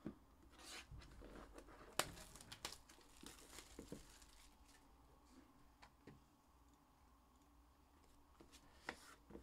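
Plastic shrink wrap being torn and crinkled off a trading card hobby box, in quick scattered crackles, most of them in the first four seconds and a few more near the end.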